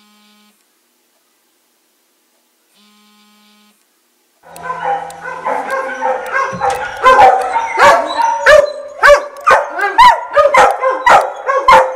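Near silence for the first few seconds. Then house dogs start whining and yipping, eager to be let outside in the morning, and from about halfway through they break into sharp, loud barks roughly twice a second over the continued whining.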